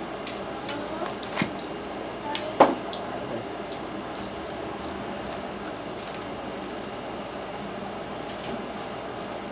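Crabs being eaten: a few sharp cracks and clicks of shell and mouth smacking in the first three or four seconds, the loudest about two and a half seconds in, then only a steady background hum.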